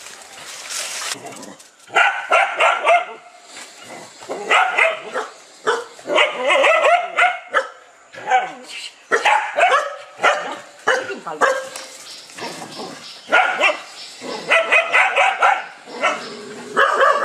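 Several dogs barking in loud, repeated bouts with short pauses between them, barking at a Komodo dragon.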